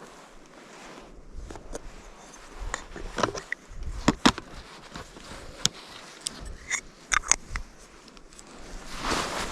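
Irregular clicks, knocks and scrapes of things being handled, the loudest knocks about four seconds in, with a rushing noise building near the end.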